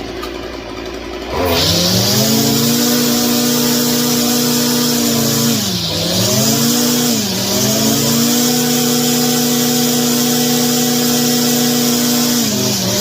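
Stihl FS 56 string trimmer's two-stroke engine idling, then revved to a high steady full-throttle speed with two brief throttle dips, and dropping back to idle near the end. It runs and revs cleanly on a new carburetor and cleaned spark arrestor, without bogging.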